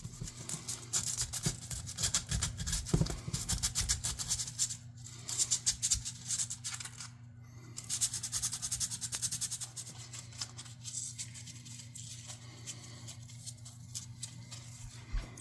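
Background music over rapid, repeated scraping or rubbing strokes of hand work, busiest in the first half and lighter after.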